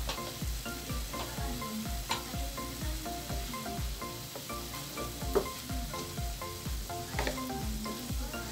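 Pork cubes sizzling in a nonstick wok as their water boils off, just before the fat starts to render, stirred with a wooden spatula that knocks and scrapes against the pan, sharpest about five seconds in. Background music with a steady beat plays underneath.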